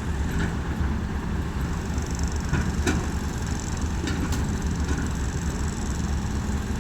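Excavator's diesel engine running steadily, with a few sharp knocks about halfway through.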